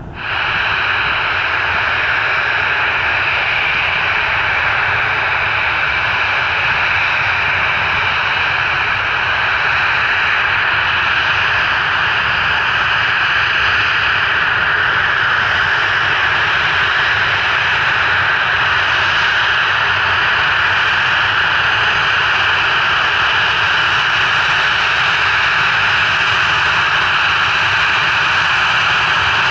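Boeing 737-800's CFM56-7B turbofan engines running at taxi power: a steady whining hiss with a few faint held tones, a little louder from about nine seconds in.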